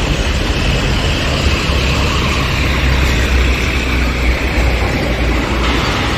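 Road traffic on a multi-lane carriageway: cars going by with steady tyre and engine noise. A low rumble underneath swells in the middle.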